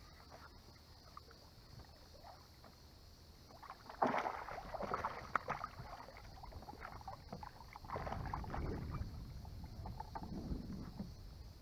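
A hooked fish splashing and thrashing at the surface beside a boat. A sudden loud splash comes about four seconds in, and more splashing follows about eight seconds in as the fish is brought up out of the water.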